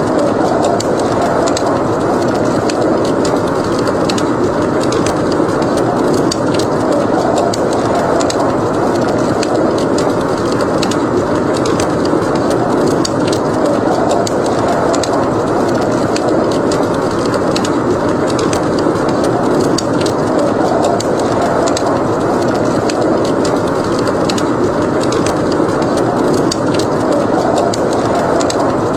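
Fireplace crackling, with frequent small sharp pops scattered throughout, over a steady, unbroken rush of blizzard wind.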